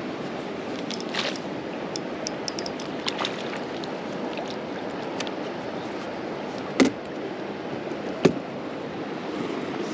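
A trout being scooped from the water in a rubber-mesh landing net, with water splashing and dripping over a steady wash of water. There are small clicks early on and two sharp knocks, about seven and eight seconds in.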